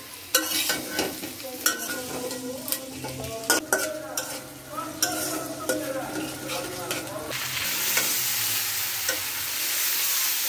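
Metal spatula scraping and knocking against an iron karahi as food is stirred in hot oil. From about seven seconds in comes a steady, loud sizzle of whole potatoes frying.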